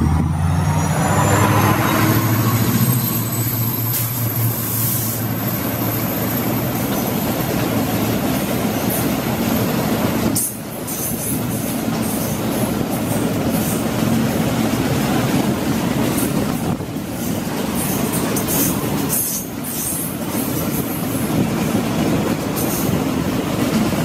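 Indian Railways diesel locomotive passing, its engine hum fading over the first few seconds, followed by a long goods train's wagons rolling past with steady wheel rumble and rattle on the rails. A thin high wheel squeal runs through the first half, and the noise dips briefly a few times as wagon ends go by.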